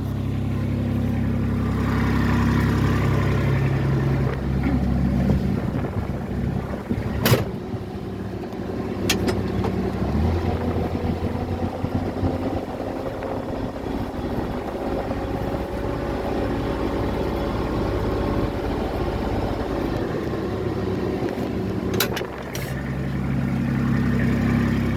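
RTV utility vehicle's engine running as it drives with a load of brush, its engine note shifting a few times, with a few sharp knocks about 7 s, 9 s and 22 s in.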